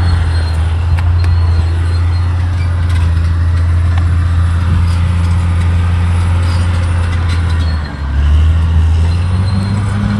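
Caterpillar D6R XL bulldozer's diesel engine running steadily. About eight seconds in, the engine note briefly drops lower, then comes back up.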